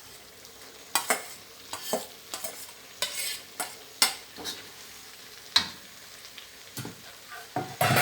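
Spatula stirring and scraping in a pan as chicken and pickled bamboo shoots fry in red curry paste: irregular scrapes and knocks over a low sizzle.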